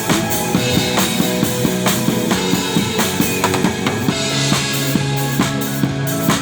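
A drum kit played in a steady beat, bass drum and snare hits several times a second, over music with sustained tones.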